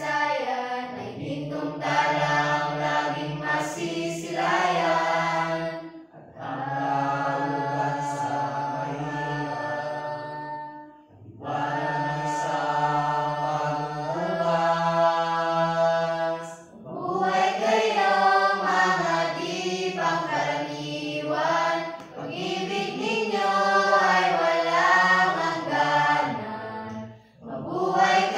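Mixed-voice church choir singing in harmony, in long held phrases of about five seconds each with short breaks between them.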